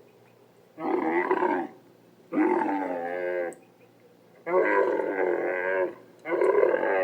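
Dromedary camel calling four times in a row, each a long, wavering, pitched call of about a second, with short pauses between them.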